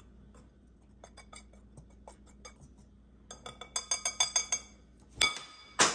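Wire whisk stirring dry flour in a glass bowl, its wires ticking against the glass, faint at first, then a quick run of clinks past the middle. Near the end two louder clinks ring out from the glass.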